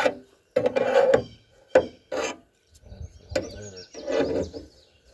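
Stiff, partly seized truck hood hinge being worked up and down to free it: metal rubbing and grating in several uneven strokes, with a thin squeak near the end.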